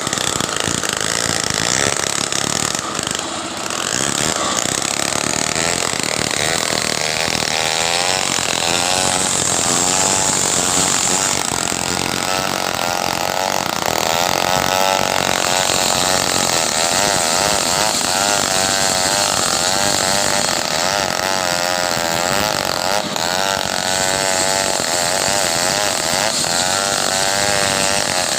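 Stihl two-stroke chainsaw running continuously while cutting wood, its engine note wavering up and down.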